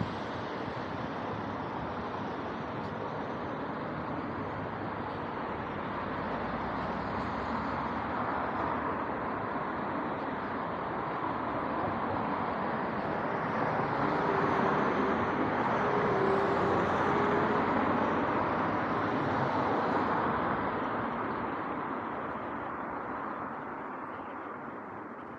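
Road traffic on the street, a steady hiss of tyres and engines that swells as vehicles pass, loudest about two-thirds of the way through, then fades near the end.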